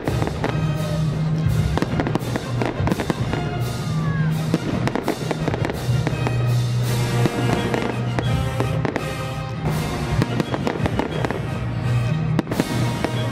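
A fireworks display: aerial shells bursting and crackling in quick succession, one bang after another, with music playing underneath.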